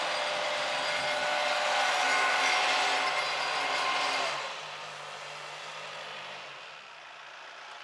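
Kioti KL7320 tractor's diesel engine running at 540 PTO rpm under load on a PTO dynamometer, a loud, steady mechanical noise. About four seconds in the level drops sharply as the engine is throttled back, and it eases further near the end.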